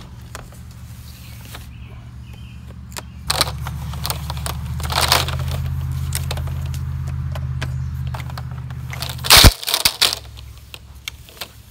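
A coil of black polyethylene well pipe being handled and cut loose: plastic and tape crackling and tearing, with scattered clicks and scrapes and one sharp loud knock about nine seconds in. A low steady hum runs underneath.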